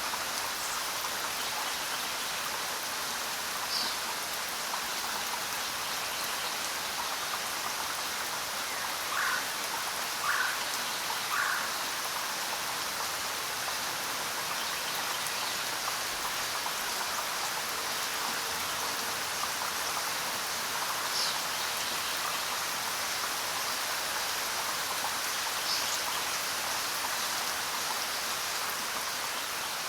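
Steady rain falling, an even hiss. A few short animal calls stand out over it: three in quick succession about nine to twelve seconds in, and a few brief high ones scattered through.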